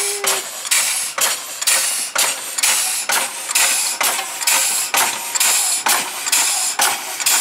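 Home-made twin-cylinder compressed-air locomotive running in reverse. Its tractor hydraulic rams, worked as air cylinders, exhaust through spool valves in a steady chuff of hissing puffs, about two a second.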